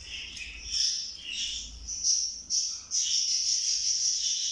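Budgerigars chirping and warbling in high-pitched notes: short broken chirps at first, running into a near-continuous warble from about three seconds in.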